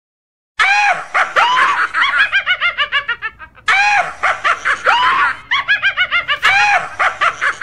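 Squeaky, high-pitched laughing sound effect that cuts in abruptly about half a second in: a few rising whoops, then a fast chattering giggle. It plays three times over in a loop.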